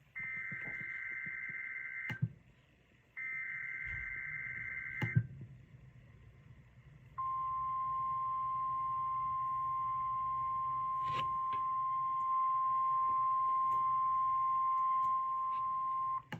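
Emergency Alert System broadcast on NOAA Weather Radio: two bursts of screechy SAME header data tones, about two seconds each, then the steady single-pitch weather radio warning alarm tone held for about nine seconds, announcing a severe thunderstorm watch.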